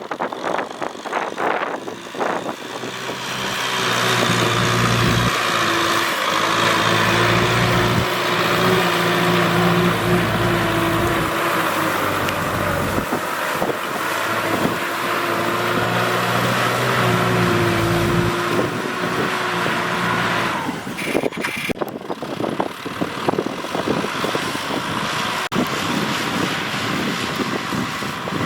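Diesel farm tractor engine running steadily under plowing load, swelling in level over the first few seconds. About twenty seconds in, the engine note drops away and a rough, crackling noise is left.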